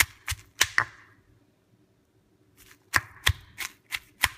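Stone pestle pounding roasted jalapeños, garlic and baby eggplants in a granite mortar: sharp knocks, a quick run of four, a pause of about a second and a half, then steady pounding about three strikes a second.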